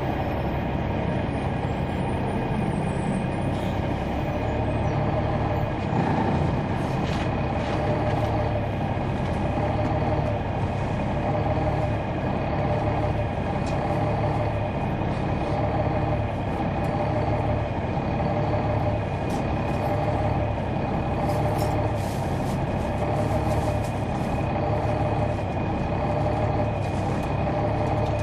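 Caterpillar C-9 ACERT diesel engine of a 2004 Neoplan AN459 articulated bus, heard from on board, running steadily. A higher whine wavers up and down at a regular pace over the drone, with a few faint clicks.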